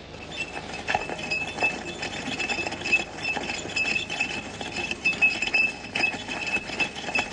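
Insects on a pine-needle anthill: a dense crackle of tiny clicks and rustles, with a thin, high chirring tone that keeps breaking off and starting again.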